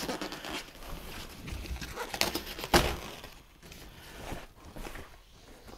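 Foam packing wrap rustling and crinkling as it is pulled off a large car spoiler by hand, with irregular handling knocks. The loudest is a sharp knock a little under three seconds in.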